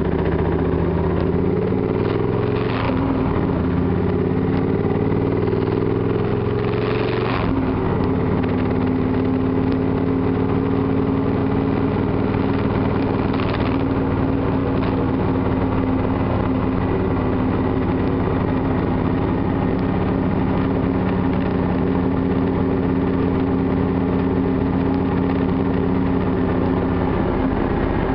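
Triumph Thunderbird motorcycle engine running steadily under way. Its note shifts about seven seconds in, then holds steady, with a few brief gusts of noise along the way.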